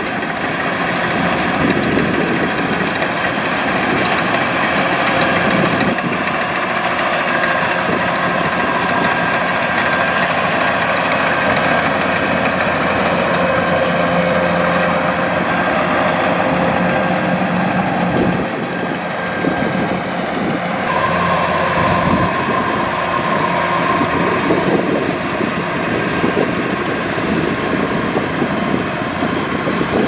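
Kubota DC-105X rice combine harvester running steadily as it cuts and threshes a standing rice crop: a dense engine-and-machinery drone laced with steady whines. A higher whine joins about two-thirds of the way through.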